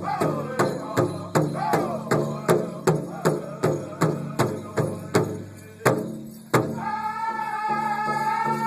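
Powwow drum group singing at a big drum: several drummers strike a steady beat of about two and a half beats a second under high, wavering voices. Just before six seconds in the beat breaks for two louder strikes, then the singers hold a long high note over a softer beat.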